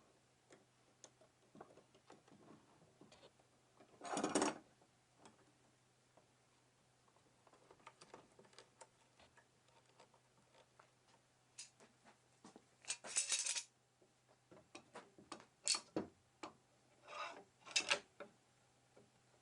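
Small hard objects clicking and clinking as they are handled, with a few louder short rattling bursts, over a faint steady hum.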